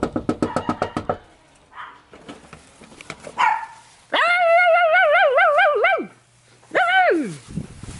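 Dog whining excitedly in greeting, in long, wavering, high-pitched cries: one of about two seconds starting about four seconds in, then a shorter one that falls in pitch near the end. A quick run of about eight clicks comes at the start.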